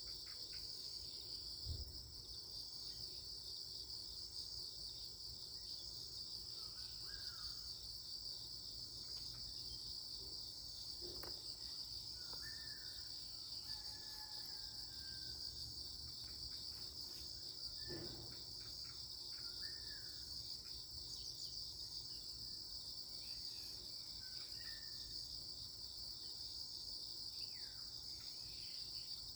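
A steady, high-pitched insect chorus trills without a break, with faint bird chirps now and then and a few soft knocks.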